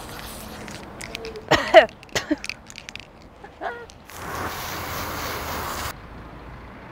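A woman's brief vocal outbursts: a loud short exclamation about one and a half seconds in and a smaller one a couple of seconds later, with a few clicks. Then comes about two seconds of rushing noise that cuts off suddenly.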